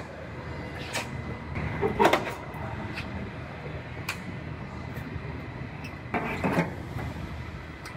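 Scattered clanks and scrapes of the Honda Civic's thin steel quarter-panel sheet metal as the cut-off section is pulled and worked loose by hand. The strongest knock comes about two seconds in and a short cluster near six seconds, over a steady low hum.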